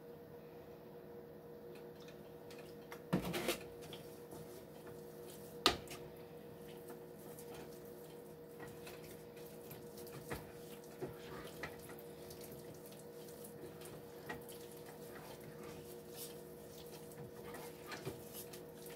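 Wooden spoon stirring and scraping a thick flour-and-milk roux in a nonstick skillet, a faint wet working sound, with a few sharp knocks against the pan about three and six seconds in. A steady hum runs underneath.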